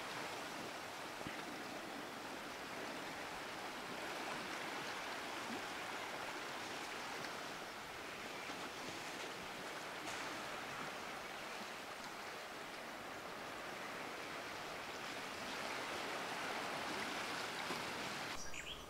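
Small waves washing against a rocky shore: a steady, even wash of water that cuts off just before the end.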